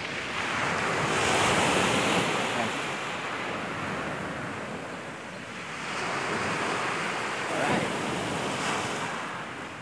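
Sea surf washing onto a pebble beach, with wind buffeting the microphone. The wash swells twice, about a second in and again around six seconds in.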